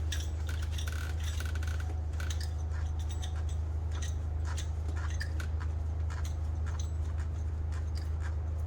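Irregular light metallic clicks and ticks of bolts and hand tools being handled on an engine, with a few brief squeaks early on, over a steady low hum.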